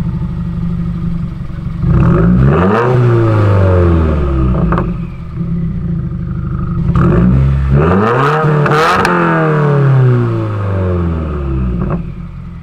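Subaru WRX's turbocharged flat-four with a muffler-delete exhaust, idling and then revved twice, about two seconds in and again around seven seconds. Each rev climbs quickly and winds back down to idle.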